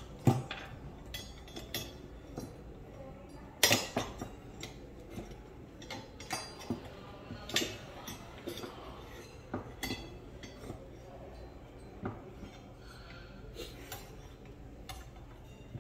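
Scattered metal clicks, clinks and light knocks as a PCP air rifle's parts are handled and pulled apart by hand, with the sharpest knocks about a third of a second in and just before four seconds in.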